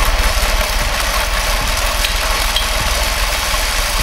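Giant reinforced-concrete fidget spinner whirling at speed on its steel axle and bearing: a loud, steady low rumble with a fast, even pulsing and a hiss of air.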